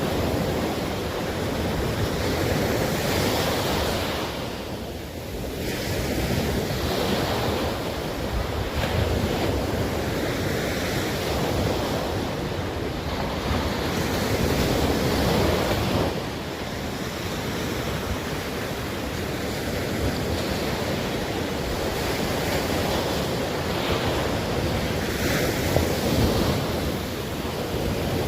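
Atlantic surf washing in the shallows, swelling and easing every few seconds, with wind buffeting the microphone.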